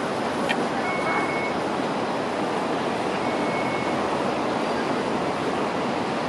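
Steady din of a Hong Kong Light Rail vehicle running away along the track amid traffic noise, with a short high squeal about a second in and another around three seconds.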